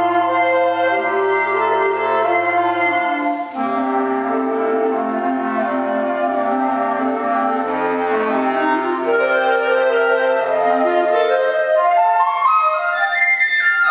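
A woodwind ensemble of flutes, clarinets and saxophones playing slow, sustained chords. Near the end a run of notes climbs upward.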